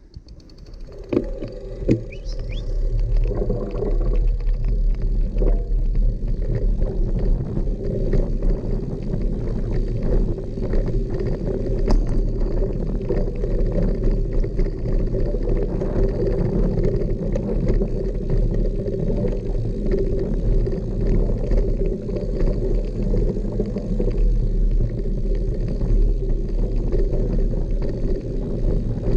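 Mountain bike riding a dirt singletrack: a steady rumble of tyres on dirt, with frequent rattles and knocks over bumps. It builds up over the first few seconds as the bike gathers speed.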